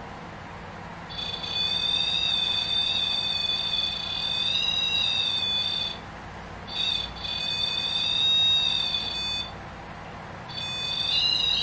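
Electronic alarm tone from a ghost-hunting sensor device set off, a high, slightly wavering beep-tone. It sounds for about five seconds, breaks off, sounds again for about three, and starts again near the end.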